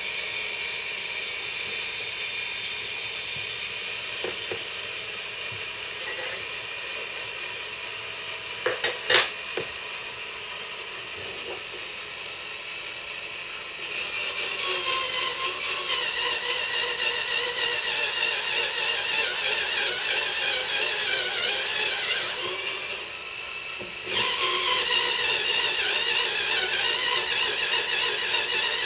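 Electric drill motor in a homemade drill press, running with a steady high whine and a few sharp clicks. About halfway it gets louder with a wavering whine, drops briefly, then picks up again.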